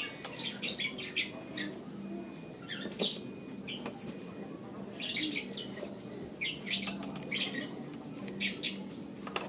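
Hands fitting a motorcycle throttle position sensor and its plastic wiring connector onto the throttle body: an irregular run of small plastic clicks, taps and rustling.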